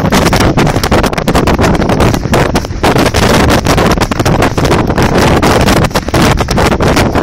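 Loud, continuous wind buffeting and rubbing on the microphone of a camera carried on horseback, with many quick knocks and scrapes from the movement.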